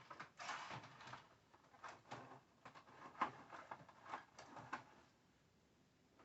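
Hands handling equipment and cables: a run of irregular light clicks, knocks and rustles, the sharpest knock about three seconds in, dying away after about five seconds.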